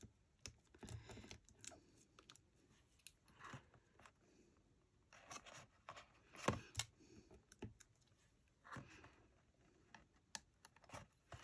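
Faint, scattered small clicks and scratchy rustles of hands picking up tiny craft rhinestones one by one and setting them onto a paper gift bag.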